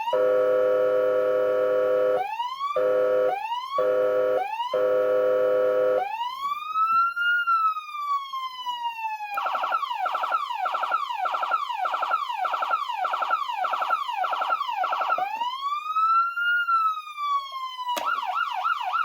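GALLS GS-101 electronic siren amplifier stepping through its tones: a steady horn tone held about two seconds, then three short horn blasts, then a slow rising and falling wail. Next comes a run of quick falling sweeps, about two a second, a second slow wail, and near the end a fast warble.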